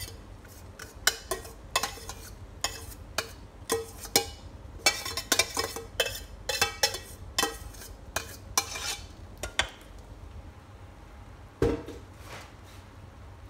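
A metal spoon scraping and knocking against cooking pots while spooning cooked rice into an Instant Pot: irregular clinks and scrapes several times a second that thin out after about ten seconds, with one heavier knock near the end.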